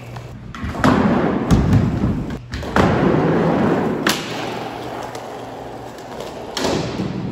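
Small plastic toy skateboard rolling on concrete with a steady rough rumble, broken by about five hard knocks and thuds as the board is popped, lands and hits a ledge, the heaviest about a second and a half in.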